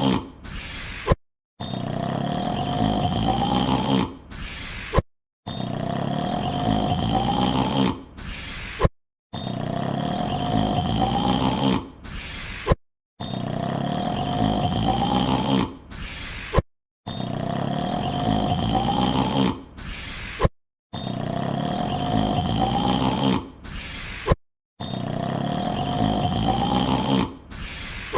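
The same long drawn-out yawn, looped over and over. Each yawn lasts about two and a half seconds, its pitch rising slowly, then it breaks off with a click and a short silence before it starts again, roughly every four seconds, about seven times here.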